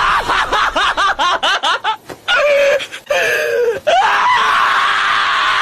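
Shiba Inu screaming while restrained: a fast string of shrill yelping squeals, then two drawn-out wails. About four seconds in, a different long, steady, high cry takes over.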